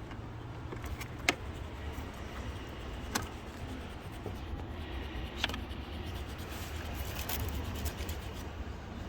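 Handling noise under the car as the DEF injector line is worked through: a steady low rumble with four sharp clicks and taps, the loudest about a second in.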